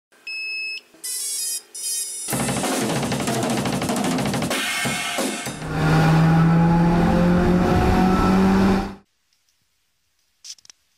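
Intro music with drums and cymbals for a channel logo animation: electronic beeps, then a dense stretch, then a held chord. It cuts off sharply about nine seconds in.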